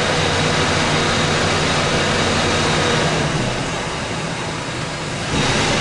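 Ford 4.6 V8 engine of a 2004 F-150 running steadily with light throttle while held in drive on the brake. A louder rush of sound comes in near the end.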